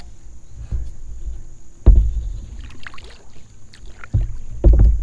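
Someone paddling a plastic sit-on-top kayak: paddle strokes and splashes, with loud low thuds carried through the hull about two seconds in and twice more near the end.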